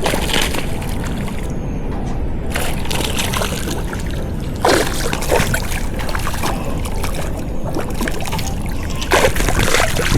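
Water splashing and sloshing in irregular bursts, several of them, heaviest about a third of the way in, near the middle and near the end, as from a hooked fish thrashing at the surface.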